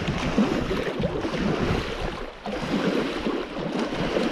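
Choppy lake water lapping and splashing against a rock shoreline, with wind on the microphone.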